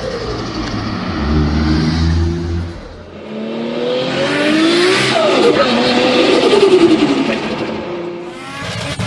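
Turbocharged car engine running steadily, then revving: its pitch climbs and then falls away again, loudest in the second half.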